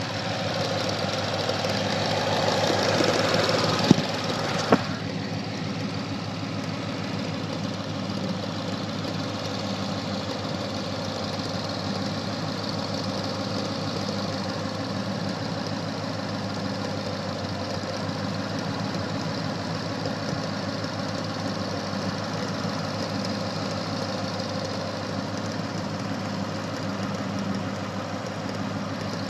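A 2013 Mustang's 5.0 V8 idling steadily with a ticking that sounds like popcorn popping; the cause is unknown to the owner. Two sharp clicks stand out about four and five seconds in.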